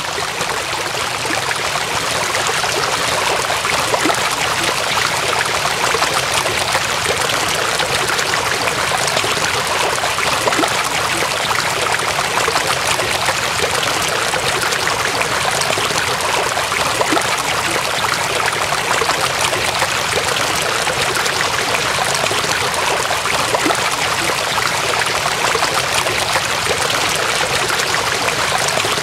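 Heavy rain pouring onto a flooded road, a dense steady rushing hiss with water running and splashing over the road.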